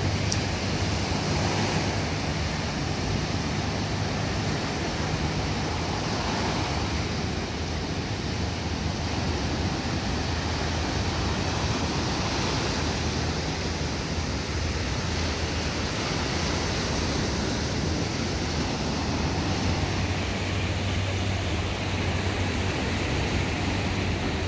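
Small surf waves breaking and washing up a sandy beach: a steady rush of water noise.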